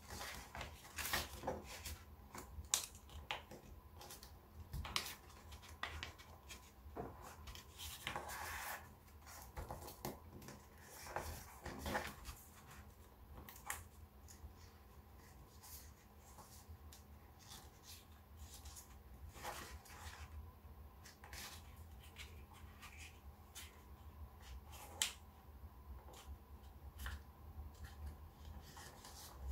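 Black origami paper being folded and creased by hand: irregular soft crinkles, rubs and light taps of the paper on the table, over a faint low hum.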